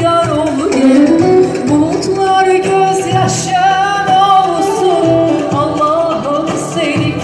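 Live Turkish folk song: a woman singing into a microphone over electronic keyboard accompaniment, amplified through the PA, with a wavering melody line.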